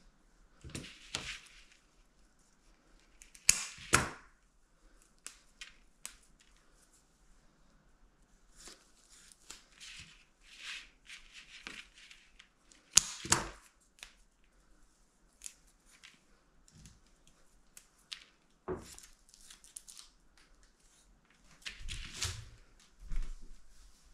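Craft materials being handled: scattered sharp snaps and clicks among short rustling and scraping noises, with the loudest snaps twice near the 4-second mark and once about 13 seconds in.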